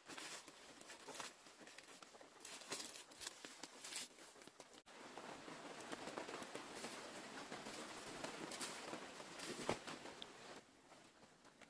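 Dry banana leaves and fibrous trunk sheaths rustling and crackling, with scrapes and rubs, as a person climbs a wild banana plant. The crackles come in quick irregular bursts in the first half, then settle into steadier rustling until shortly before the end.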